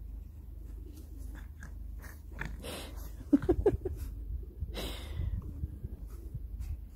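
French bulldog puppy's mouth and nose sounds: scattered small crunches and clicks, two short noisy puffs of breath, and a quick run of short pitched grunts about three and a half seconds in.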